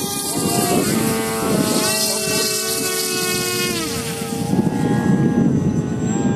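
Radio-controlled biplane's motor and propeller running overhead as a steady pitched hum with several overtones. The pitch steps up about a second in and slides down about four seconds in. Wind rumbles on the microphone in the last part.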